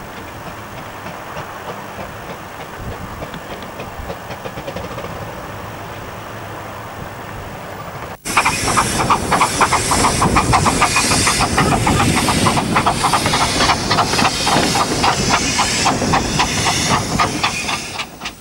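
A miniature 15-inch gauge steam train running: a steady, distant-sounding rumble for about eight seconds, then after a sudden cut, a much louder sound heard from aboard the moving train, with a fast, regular beat of exhaust chuffs and wheel clatter over steam hiss, fading out at the end.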